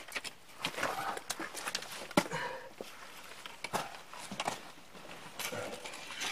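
Hiking boots scuffing and knocking on sandstone, with a backpack and trekking poles scraping against the rock, as a hiker scrambles up and back down a narrow chute. Irregular sharp knocks a second or so apart over soft scrapes and rustling.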